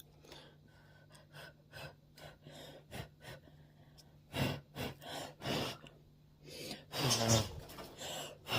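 A person's breathy puffs and gasps, short and irregular, louder in the second half, with a brief voiced sound about seven seconds in and again at the end.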